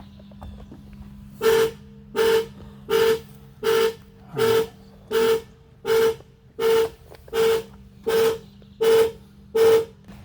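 2012 Ford Edge's horn sounding in a rapid, regular series of short honks, a dozen at about one and a third a second: the anti-theft alarm set off by opening the locked door without a key.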